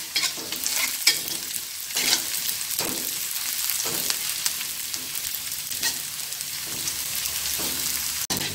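Sliced shallots sizzling steadily in hot oil in a wok while a metal spatula stirs them, scraping against the pan every second or so; the shallots are being sautéed until they wilt.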